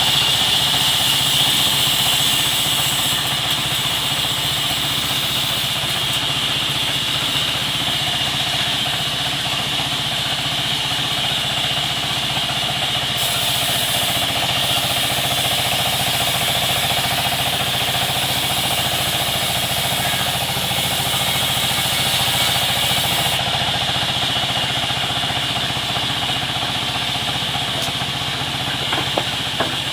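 Sawmill machinery running steadily: a motor drone with a steady high-pitched hiss over it. A few sharp clicks near the end.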